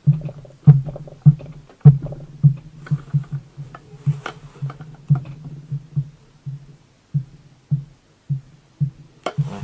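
Repeated short dull knocks and metallic clicks, about one or two a second, growing sparser near the end, as the connecting rod is rocked on the crankshaft of a two-stroke moped engine to feel for big-end play; a slight play is found in the new rod.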